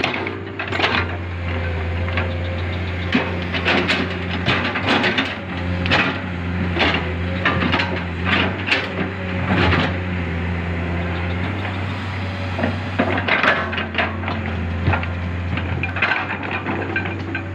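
Hydraulic excavator working: its diesel engine runs steadily at a low hum while a string of irregular knocks, cracks and scrapes comes from the work, several a second at busy moments.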